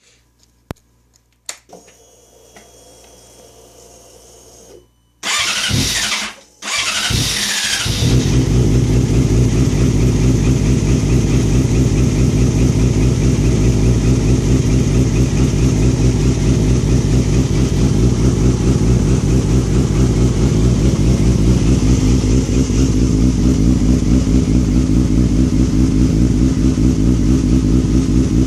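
2007 Yamaha R6's inline-four engine being started: a couple of clicks and a faint hum, then the starter cranks, stops briefly and cranks again. The engine catches about eight seconds in and settles into a steady idle with a fast, slightly uneven pulse, which the owner calls a rough idle.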